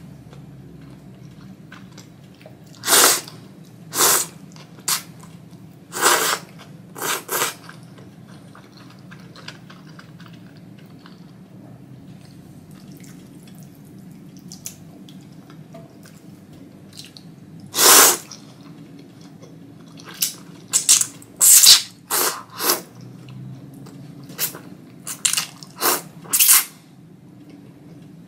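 Wet slurps of thick ramen noodles being sucked in, each a short noisy burst of under a second. They come in clusters near the start and toward the end, with one strong slurp midway and a quieter stretch between.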